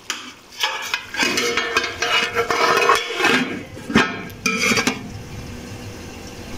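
A metal utensil scraping and clinking against an aluminium cooking pot, in irregular clattering strokes with sharp clinks about three and four seconds in. The clatter goes quieter after about five seconds.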